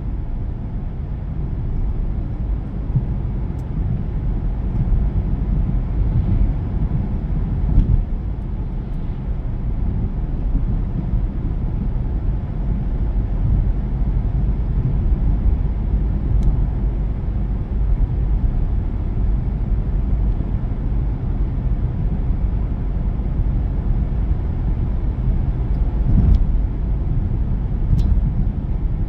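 A car being driven: steady low rumble of road and engine noise.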